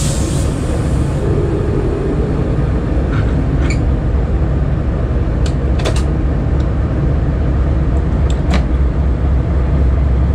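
Diesel freight locomotive engine running under load as the train pulls slowly, heard from the top of the locomotive's hood as a steady low drone. A few short sharp clicks come about midway, two pairs a couple of seconds apart.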